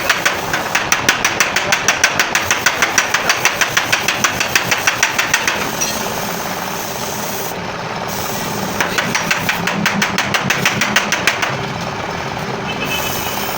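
Fast, evenly spaced metallic knocking in two runs, the first stopping about six seconds in and the second running from about nine to eleven seconds, over a steady engine running underneath.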